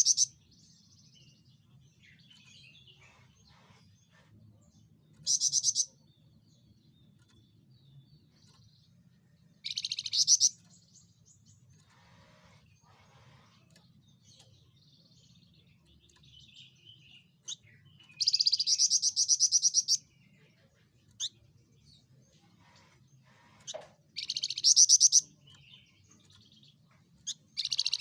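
Javan fulvetta singing short, loud, rapid trilled bursts, high-pitched and a few seconds apart, with one longer burst of about two seconds about two-thirds of the way through. A faint low hum runs underneath.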